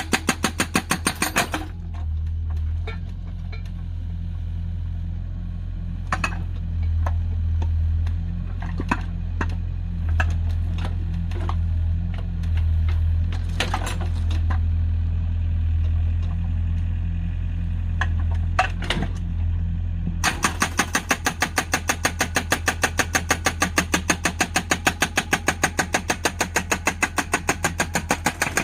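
Excavator diesel engine running while its hydraulic breaker hammers into firewood logs to split them, about eight blows a second. The hammering comes in two spells, a short one at the start and a longer one over the last eight seconds or so. In between, the engine drones with scattered single knocks and cracks.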